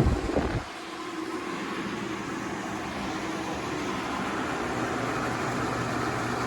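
A low thump at the start, then an electric fan switched to high speed runs with a steady rush of air that grows slightly louder as it spins up.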